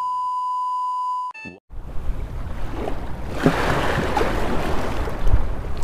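A steady, high test-tone beep for just over a second, cutting off suddenly. Then small sea waves washing, with wind on the microphone.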